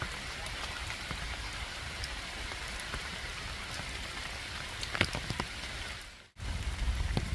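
Steady rain falling, with a few sharper drops about five seconds in. The sound cuts out briefly near the end and comes back with more low rumble.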